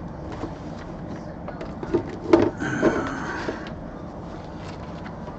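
Handling of an antenna's parts and packaging: a few clicks and knocks, the loudest about two and a half seconds in, followed by a short scraping rub.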